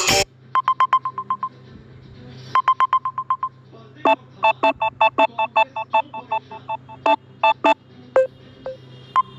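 Samsung Galaxy A50s phone's ringtone music cuts off, then its keypad touch tones beep in quick runs. First come two bursts of rapid single-pitch beeps, then a longer run of two-pitch dialing tones at about four a second, then a few scattered beeps near the end.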